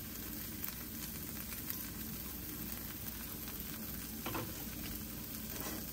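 Shredded cheese with a drop of butter sizzling gently in a nonstick frying pan on low heat, melting and browning; a steady crackling hiss with a couple of faint clicks near the end.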